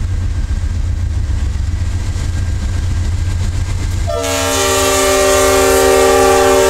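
GE C44-9W diesel locomotive rumbling past at close range, then its multi-note air horn sounds about four seconds in, a chord of several tones held for nearly three seconds.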